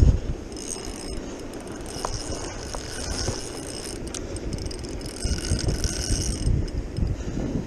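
Spinning reel being cranked, its gears and rotor whirring in stretches with short pauses between turns. A low rumble of wind on the microphone runs underneath.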